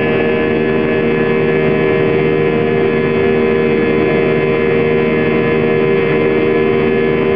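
Airbus A320 cabin noise heard from a window seat just ahead of the right engine while climbing shortly after takeoff. The IAE V2500 turbofan runs steadily under a broad rush of air, with several steady humming tones, the strongest a low hum.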